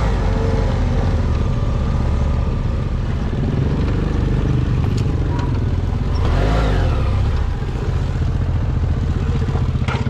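Motorcycle engine running as the bike rides on, with a rise and fall in pitch about six to seven seconds in.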